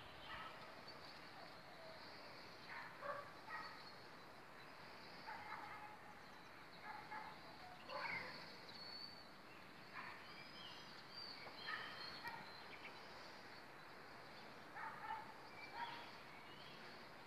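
Norfolk terrier puppies making faint high squeaks and yips as they play-fight, short calls coming at irregular moments every second or two.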